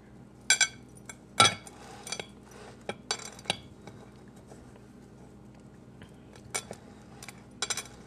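Metal fork clinking and scraping against a ceramic dish of breadcrumbs while a seitan cutlet is pressed into the crumbs: scattered sharp clinks, several in the first three seconds, a quiet pause, then a few more near the end.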